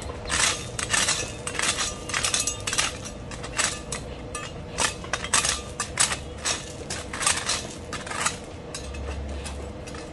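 Garden trowel digging and scraping through loose gravel, the pebbles clinking and crunching against the blade and each other in quick, irregular strokes that stop near the end.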